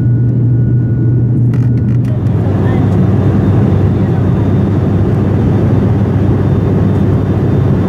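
Steady low drone of a turboprop airliner's engines and propellers heard inside the cabin in flight. A few clicks come about a second and a half in, and the hum settles a little lower just after.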